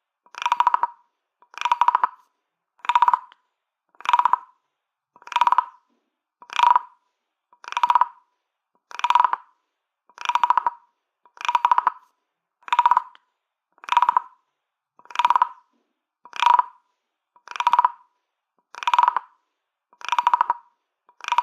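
Wooden croaking frog, a ribbed-back percussion toy, being scraped again and again to give short ratchety croaks. Each croak lasts about half a second, and they come at an even pace of a little under one a second.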